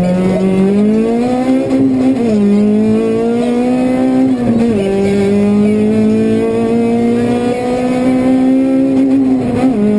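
Honda Civic Type-R rally car's four-cylinder engine heard from inside the cabin, held at high revs under hard acceleration. The note climbs steadily and drops sharply at three upshifts, about two seconds in, near the middle and near the end.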